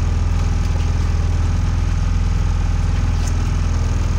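Engine running steadily aboard a fishing boat: an even, low hum that does not change.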